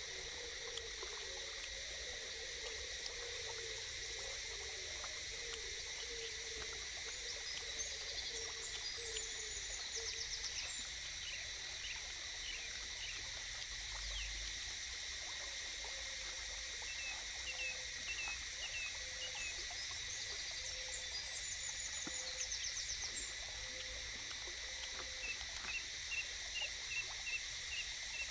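Forest ambience: a steady high insect drone with scattered bird chirps, and a low warbling animal call through the first ten seconds and again midway.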